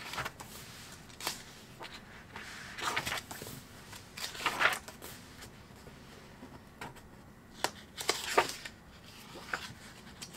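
Paper pages of a hardcover sketchbook being turned by hand: a series of short rustles and swishes with a few light clicks, spread out over several seconds.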